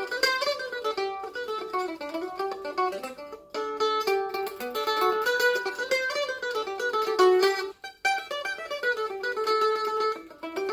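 F-style mandolin picked in quick runs of single notes, with two brief breaks, about three and a half seconds in and near eight seconds.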